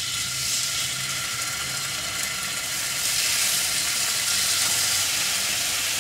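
Marinated spicy pork belly frying in a hot pan, a steady sizzle that grows louder about three seconds in.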